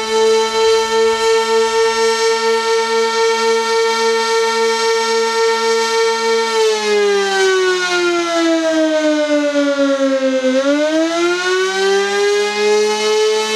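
Sentry 16V-1T-B outdoor warning siren sounding the attack signal: a loud high tone with a rapid flutter, held steady, then about six and a half seconds in sliding down in pitch for about four seconds before climbing back up.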